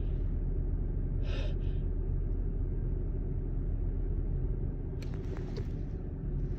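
Steady low road rumble inside a moving car. About a second in, a person takes a short, sharp intake of breath, the build-up to a sneeze.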